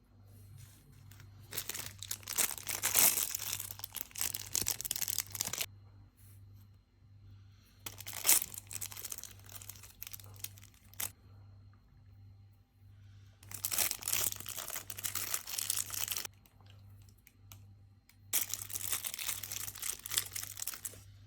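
Packaging crinkling and tearing as it is opened by hand, in four bursts of a few seconds each.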